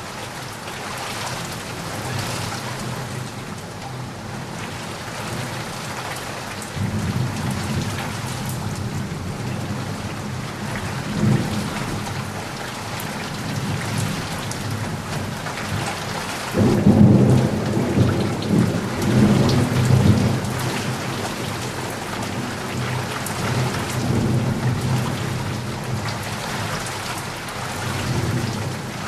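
Heavy rain falling steadily, with thunder rumbling in from about seven seconds in and swelling to its loudest a little past the middle before easing off.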